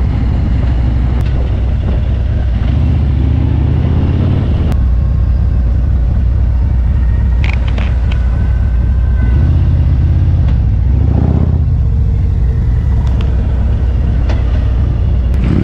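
Motorcycle engine running under way, heard from a camera mounted on the bike, with road and wind noise; the engine note rises twice as it picks up speed.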